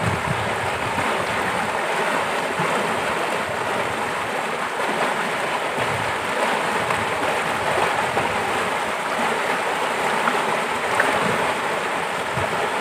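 Steady rushing of flowing stream water, even and unbroken.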